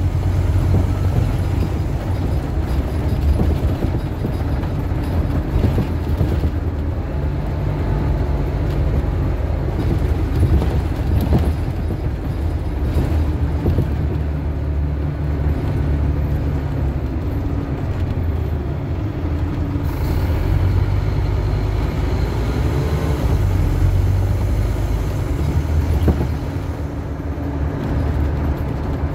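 Scania Omnicity single-decker bus heard from inside the passenger saloon while under way: a steady engine and road drone whose pitch rises and falls as the bus pulls away and changes gear. A short hiss of air comes about two-thirds of the way through.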